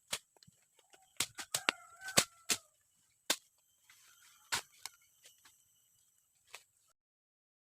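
Irregular sharp knocks and strikes, several close together in the first few seconds, over a steady high-pitched insect hum; a short gliding bird call sounds about a second in. Everything cuts off suddenly near the end.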